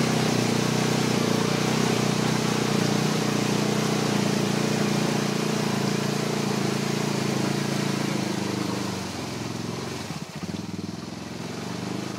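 ATV engine held at high, steady revs under load as the quad churns in deep mud with its wheels spinning; the engine note falls away about nine seconds in.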